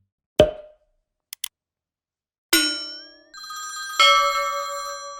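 A series of edited sound effects: a thud, two quick clicks, then two bright, bell-like chimes. The first chime carries a short rising warble; the second rings on and fades slowly.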